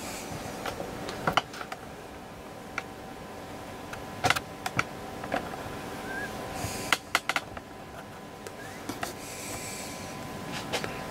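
Scattered light clicks and knocks of hands on equipment and on the camera, over a steady faint electrical hum and hiss.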